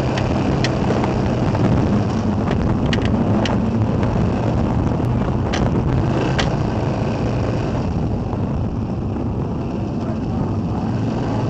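Race car engine idling steadily, heard from the cockpit, with a few sharp clicks in the first six or seven seconds.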